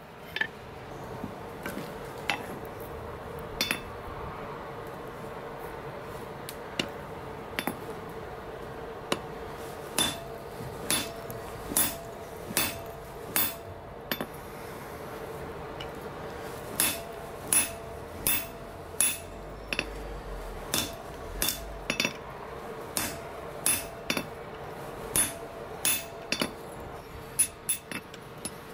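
Hand hammer striking hot steel on an anvil while forging a dragon head. Each blow is sharp, with a short metallic ring. The blows are spaced out over the first ten seconds, then come in quicker runs of one or two a second, over a steady hum.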